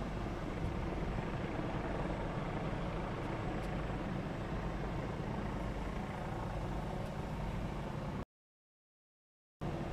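Steady low rumble of idling emergency-vehicle engines, the fire apparatus parked on the street. The sound cuts out completely for about a second near the end.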